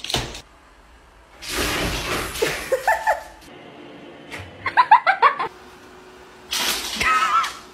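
People laughing in bursts across quick clips: laughter a couple of seconds in, a quick rhythmic run of laughs about five seconds in, and more laughing near the end.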